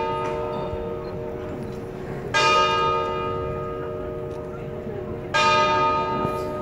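Town hall tower clock bell striking noon: slow single strokes about three seconds apart, twice in this stretch, each ringing on and slowly dying away.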